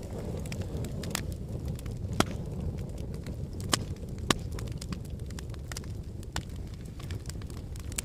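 Wood fire crackling in a fire pit: sharp pops scattered over a steady low rumble of burning, the loudest pops about two, three and a half and four seconds in.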